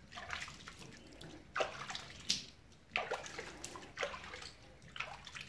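Soapy water sloshing and splashing in a metal bucket as a knife blade is scrubbed in it by hand, in a series of uneven splashes. It is the rinse that washes ferric chloride etchant off the blade and neutralizes the acid.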